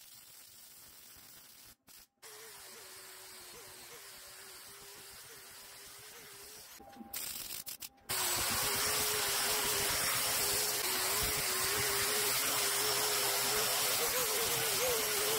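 Small MIG welder welding a steel bracket, a hissing crackle that stops and restarts briefly about two seconds in. About eight seconds in, an angle grinder starts grinding down the fresh weld, much louder, with a steady motor whine over the hiss of the disc on steel.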